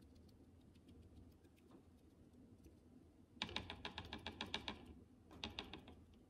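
Foam sponge wedge dabbing paint onto a thin wooden cutout: quick light taps at about ten a second, in two short runs past the middle and near the end.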